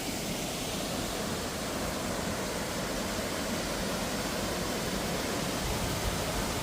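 Waterfall on Butte Creek: a steady, even rush of falling water.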